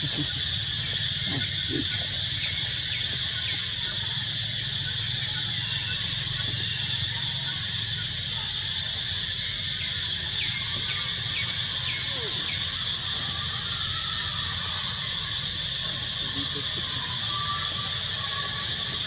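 Steady high-pitched drone of insects in the forest canopy, with a low hum underneath and a few short bird chirps about ten seconds in.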